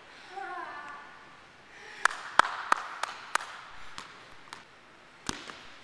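A ball bouncing several times on a hard gym floor: sharp slaps about a third of a second apart, the first ones loudest, then weaker ones near the end. A brief voice comes just before the bounces.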